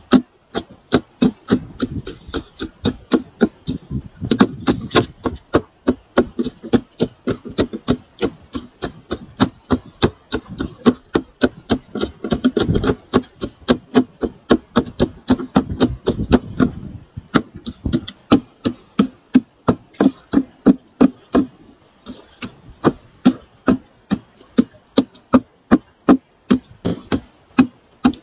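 Repeated pounding, about two to three strikes a second: fish being crushed in a container into a fine mash for chum.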